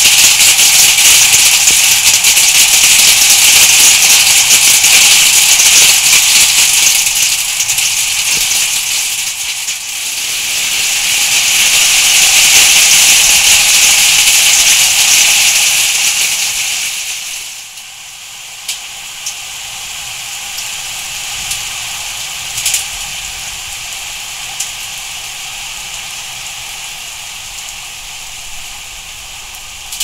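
Heavy downpour of rain and hail, a dense loud hiss and rattle of stones and drops hitting the ground. About seventeen seconds in it drops off sharply to a softer steady rain with a few sharp ticks.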